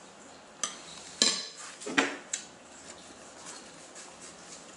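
Metal spoon clinking and scraping against a plate: about four sharp clinks in the first two and a half seconds, then only faint small ticks.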